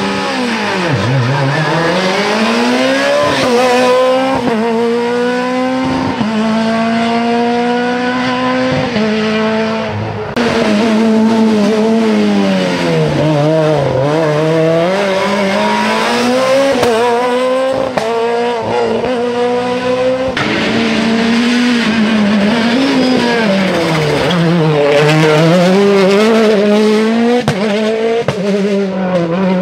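Rally car engines revved hard through the gears, the pitch climbing, breaking at each shift and dropping steeply under braking for corners, over and over.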